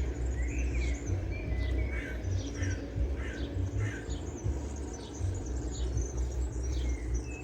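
Small birds chirping and trilling, many short high calls repeated throughout, over a steady low rumble.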